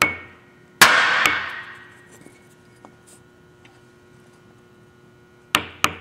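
Hammer taps on a wooden block held against a wheel hub's grease seal, knocking the raised part of the seal down flush. Each tap leaves the metal ringing: one at the start, a harder one about a second in with a lighter one just after, and two quick taps near the end.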